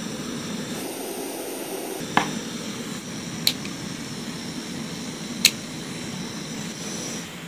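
Two small DC cooling fans running, a steady whir and hiss, with three short sharp clicks in the middle.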